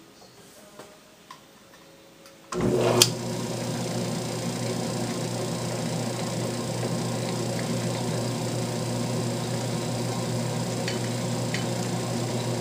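A few light clicks, then a metal lathe is switched on about two and a half seconds in: its electric motor and belt drive start with a click and run steadily with a hum.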